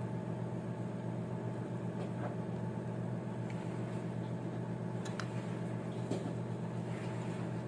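A steady mechanical hum from a motor or engine running in the background, even and unchanging, with a few faint light clicks of small metal parts being handled as the oil pump's gear is worked out of its housing.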